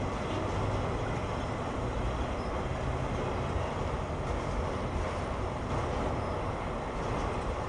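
A freight train of autorack cars rolling past, with a steady noise of steel wheels on the rails.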